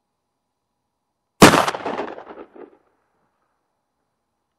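A single shot from a Stoeger 12-gauge double-barrel shotgun firing a 1-ounce slug, about a second and a half in; the loud report echoes and dies away over about a second.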